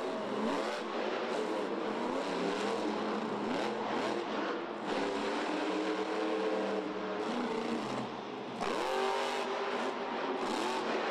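Monster truck's supercharged V8 engine revving hard, its pitch climbing and falling with the throttle. Near the end the throttle briefly lifts, then the engine revs sharply up again.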